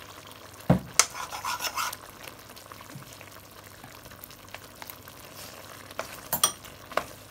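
A metal spoon and a wooden fork knocking against the pot and stirring through a pot of prawns in sauce, with the pot sizzling quietly underneath. Sharp knocks come about a second in and again twice near the end.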